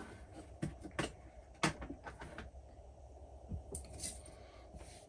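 A scattering of light clicks and knocks, about eight in all, from tools and parts being handled at a workbench, over a faint steady low hum.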